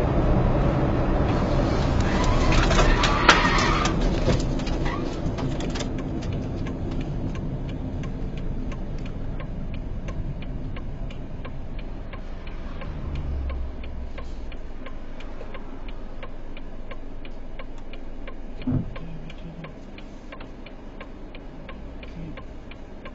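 Road and engine noise heard inside a moving car, with a loud rushing swell about three seconds in, then slowly fading. A faint, evenly spaced ticking runs through the later part, with a short low thump near the end.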